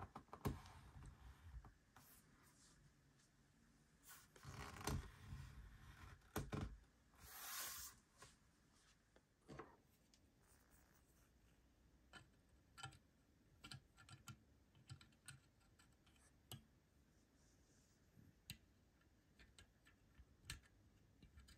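Faint handling noises from a 1:200 diecast model airliner and its stand: a few scrapes and knocks in the first seconds, a longer rub about seven seconds in, then scattered light clicks and taps.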